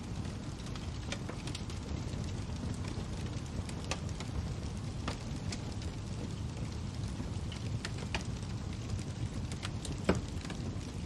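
Fire crackling: a steady low rumble of flames with scattered sharp pops, the loudest about ten seconds in.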